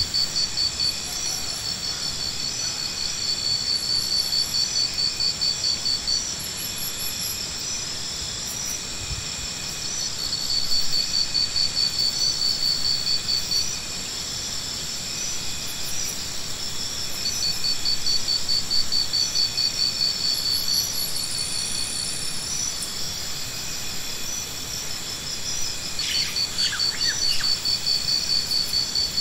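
Insects trilling: a high, rapid pulsed trill that comes in phrases a few seconds long with short gaps between, over a steady high hum.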